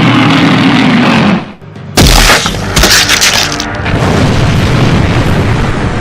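Loud battle sound effects over music: after a brief drop, a sudden deep boom about two seconds in, like an explosion, followed by continuing rumbling noise.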